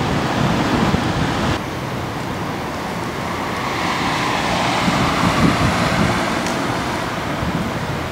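Wind on the microphone over a steady rushing outdoor noise. The sound changes abruptly at a cut about a second and a half in, and a rushing swell then rises and fades in the middle.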